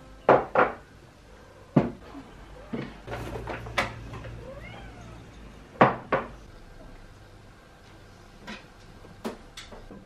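Cat bowls being set down on a table with sharp clinks and dry cat food rattling into them as cats are fed. A cat meows briefly about halfway through.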